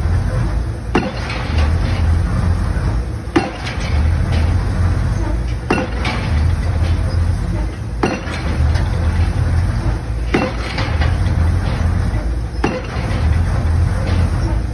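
Pile-driving rig's hammer striking the head of a precast concrete pile, six blows about every 2.3 seconds, over the rig's diesel engine running steadily.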